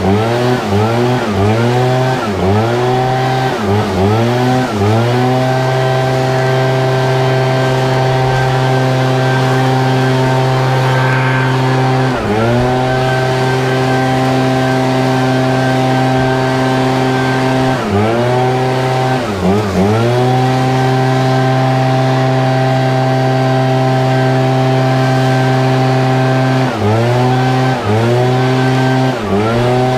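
ECHO PB-8010 backpack leaf blower's two-stroke engine running loud at full throttle, with air rushing through the tube. The throttle is let off and snapped back several times, in a quick flurry in the first few seconds and a few more times later on.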